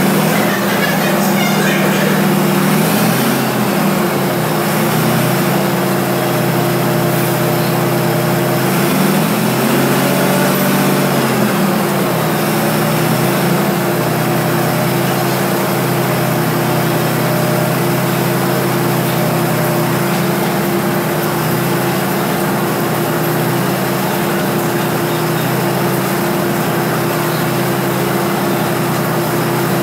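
Diesel train engine idling with a steady drone, its pitch swelling up and back down twice, briefly about three seconds in and again longer around ten seconds in.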